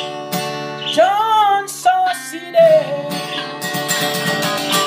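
Steel-string acoustic guitar being strummed, with a man's voice singing long held notes over it that bend in pitch about a second in and again partway through.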